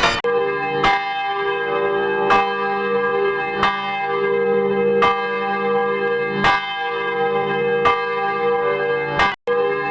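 A church bell tolling, struck about every one and a half seconds, its ring carrying on between strokes. The sound drops out for a moment near the end.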